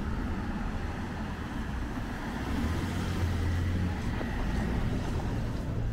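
A motor vehicle's engine running close by in the street, a low steady hum over general traffic noise that swells a little midway.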